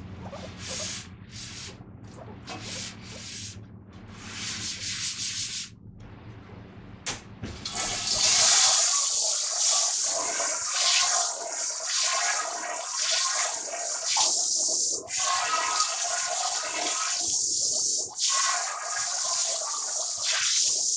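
Dishes being scrubbed in a series of short rubbing strokes, then a kitchen tap running water steadily into the sink from about eight seconds in.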